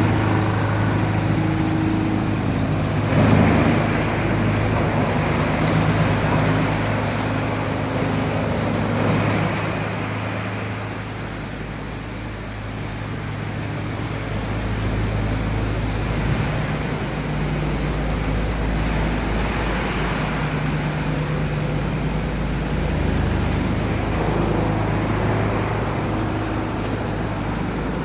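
Wood pellet production line machinery running with a steady low hum under a constant rushing noise. There is a brief knock about three seconds in, and the level eases off for a few seconds partway through.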